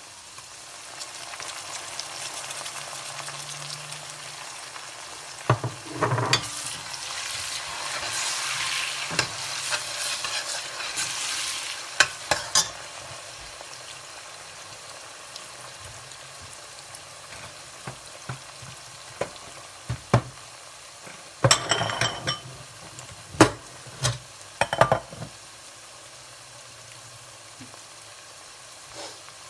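Chopped onions and freshly added tomatoes sizzling in hot oil in a stainless-steel pot, stirred with a steel ladle. The sizzle swells over the first ten seconds or so, then eases. Sharp metal clinks of the ladle against the pot come in clusters, most of them about two-thirds of the way through.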